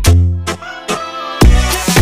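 Upbeat electronic dance background music with a heavy bass beat that drops out for about a second midway, then comes back.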